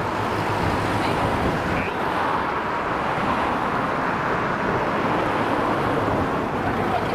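Steady road noise from a car moving slowly along a road, a continuous hum of engine and tyres.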